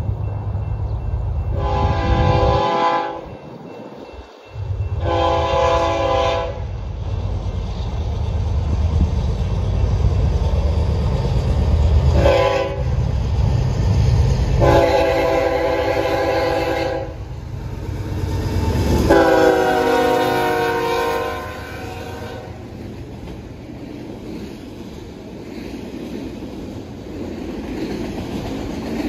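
BNSF Dash 9 (C44-9W) locomotive's forward-facing Nathan K5HL five-chime air horn sounds a series of blasts as the train approaches: two long, a short, then two more long, the last held about three seconds. This is the grade-crossing warning pattern. The locomotives then run past, followed by empty autorack cars rolling on the rails with wheel clickety-clack.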